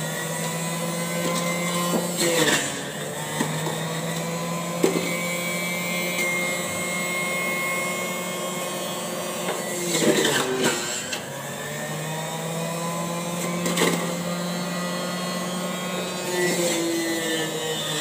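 Panasonic MJ-J176P juicer's motor running steadily with a grinding whir. Twice, about two and a half seconds in and again around ten seconds, the motor note drops and climbs back up as produce is pushed down the feed chute onto the spinning cutter, the motor slowing under the load. There are a few short clicks of the pusher in the chute.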